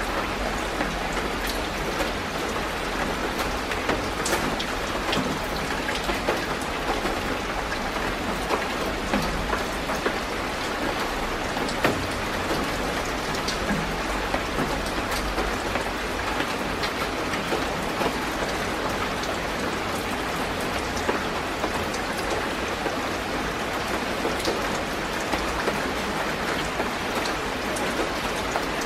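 Steady rain falling, an even hiss with many separate drops ticking through it.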